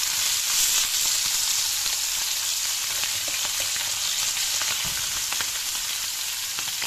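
Floured calamari rings deep-frying in hot oil: a steady sizzle with scattered crackles.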